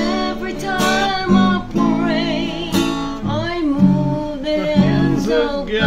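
Acoustic guitar strummed in slow, even chords, with a woman singing a slow worship melody over it.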